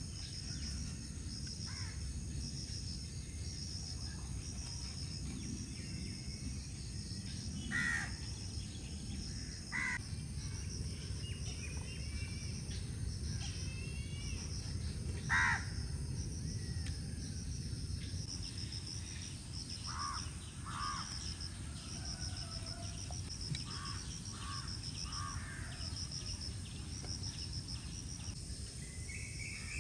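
Rural outdoor ambience: insects trilling steadily in a fast pulsing rhythm, with a handful of short bird calls, the loudest about fifteen seconds in, and a few chirps, over a low steady rumble.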